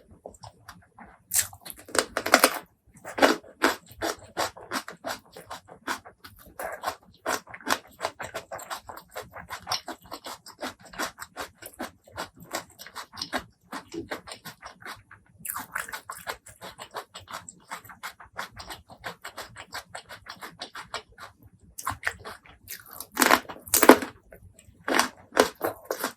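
Close-miked eating sounds: wet chewing and crunching of spicy fried food, with a dense run of small crackles. Louder crunchy bites come about two to three seconds in and again about twenty-three seconds in.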